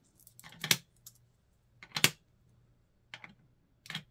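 Steel hex screwdriver bits snapping one by one into the magnetic sockets of a plastic mouth-shaped bit holder. There are four sharp clicks, the loudest about two seconds in.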